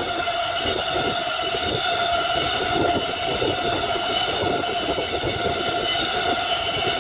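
A train rolling past close by at speed: a dense, steady rumble of wheels on rail with a steady whine over it, unchanged throughout.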